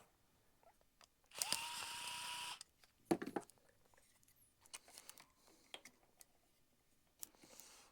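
A small cordless power tool's motor whirring for about a second, spinning up to a steady whine, followed by a sharp knock and a few light clicks of handling.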